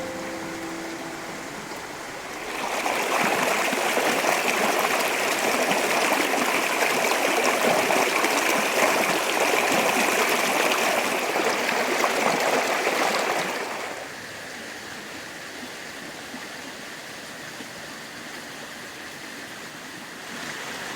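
Creek water running, a steady rush that turns much louder about two and a half seconds in and drops back to a softer flow about two-thirds of the way through.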